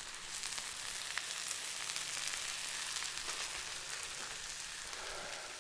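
Burger patties sizzling on a charcoal grill grate: a steady hiss of cooking fat with small scattered crackles.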